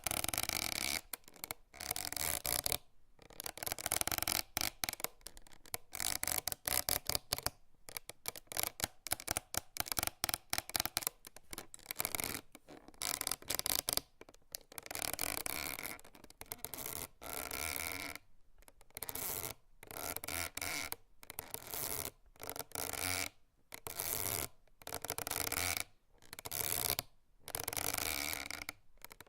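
Hemp rope creaking repeatedly as it is strained and worked, in short rough creaks of about a second each with brief pauses between.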